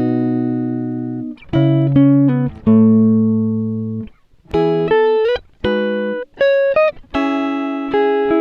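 Background music: plucked chords that ring and fade out, one after another with short breaks between them.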